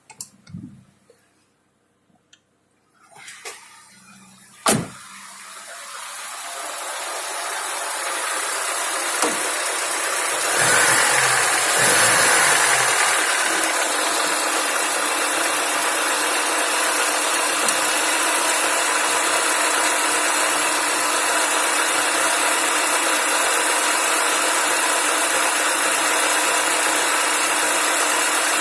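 A few clicks and one sharp knock, then a Lada Niva's four-cylinder petrol engine starts and settles into a steady run. It is recorded to show a knock in the engine.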